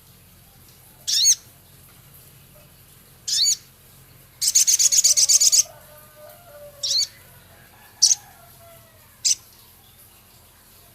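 Male sogon bird singing: sharp high chirps spaced one to two seconds apart, with a rough, rapid trill of about ten notes a second, the loudest part, about four and a half seconds in.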